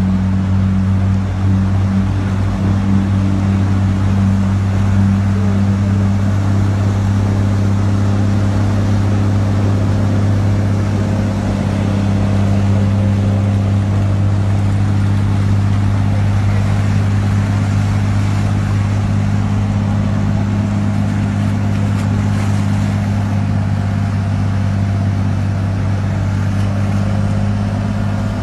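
A motor vehicle's engine running with a steady low hum over a constant hiss.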